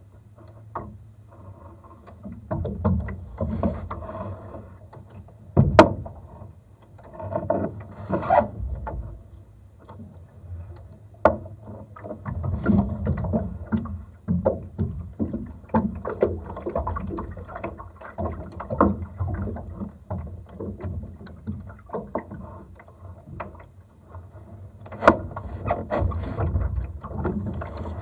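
Water lapping and gurgling against a Laser sailing dinghy's hull as it moves slowly in light wind, in irregular surges every second or two. A few sharp knocks stand out.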